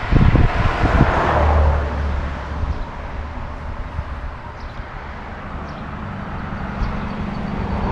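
A few heavy thumps in the first second, then the low steady hum of a motor vehicle's engine running.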